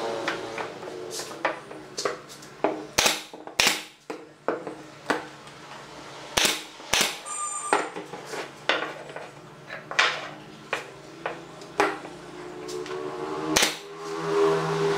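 Pneumatic brad nailer firing nails into wooden frames: about a dozen sharp shots at uneven intervals. A steady hum builds near the end.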